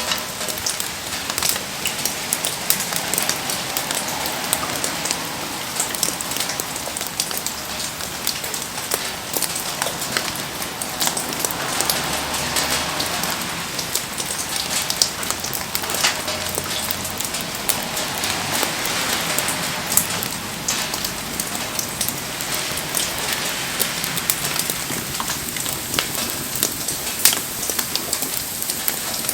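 Steady rain falling and pattering, with a wood campfire crackling and popping through it.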